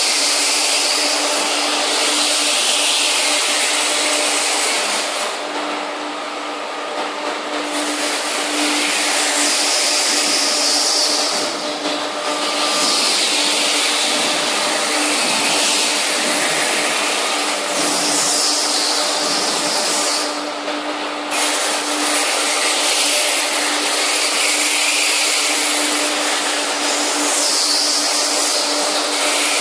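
Steel belt cooler running: a steady hiss of cooling water spraying onto the underside of the steel belt, over a constant machine hum. The hiss dulls briefly twice.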